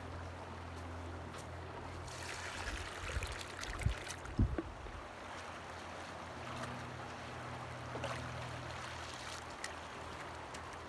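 Shallow river running steadily, with splashing a couple of seconds in as a child wades into the water. A few low thumps follow shortly after.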